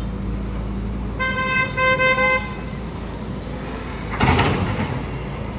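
A vehicle horn sounds in a few short toots over the steady hum of a running engine, followed a couple of seconds later by a loud, short, noisy burst.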